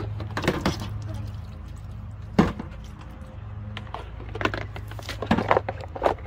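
Hollow knocks and clatter of a large plastic storage tote lid being handled and set onto the tub, the sharpest knock about two and a half seconds in, with a steady low hum underneath.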